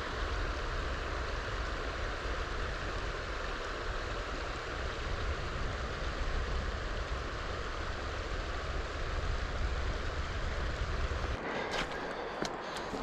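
Steady rush of a river flowing over stones, with a low rumble beneath it. The rumble cuts out about eleven and a half seconds in, and a few sharp clicks follow near the end.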